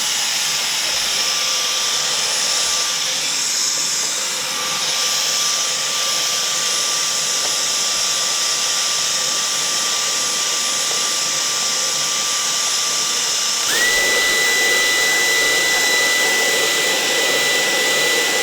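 A small high-speed electric motor blowing air runs steadily with a rushing hiss and a thin whine. Near the end its whine steps up in pitch and it gets a little louder, as if switched to a higher speed.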